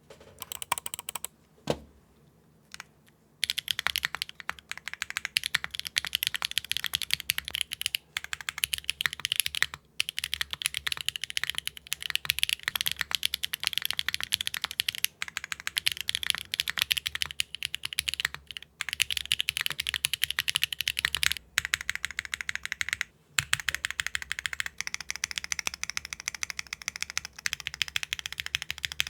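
Mechanical keyboard with HMX factory-lubed linear switches, built on a Neo60 Core with a carbon-fibre plate, GMK keycaps and no foam, being typed on. A few separate keystrokes come first, then continuous fast typing from about three seconds in, broken by a few brief pauses.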